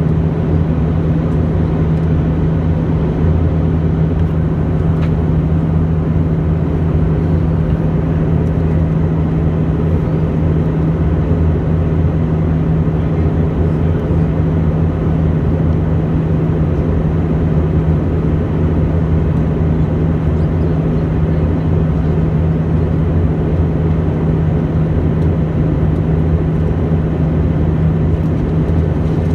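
Airbus A319 passenger cabin in flight: a steady, unbroken drone of engine and airflow noise with a strong low hum running through it.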